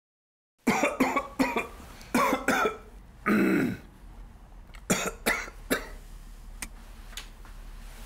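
Dry, hacking coughing in short bouts, starting under a second in: several sharp coughs, a longer throaty cough around the middle, then three more.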